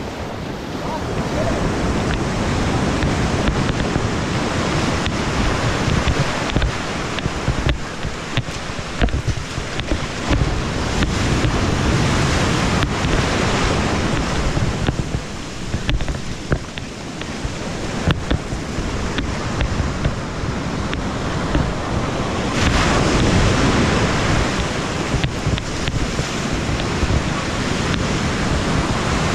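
Breaking ocean surf rushing and washing around the wader's legs, in repeated surges with the biggest wash about three quarters of the way through. Wind buffets the microphone throughout.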